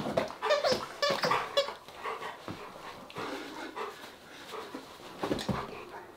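German Shepherd whining in a run of short, high-pitched cries over the first second and a half, then panting more quietly, with a couple of sharper sounds a little past five seconds.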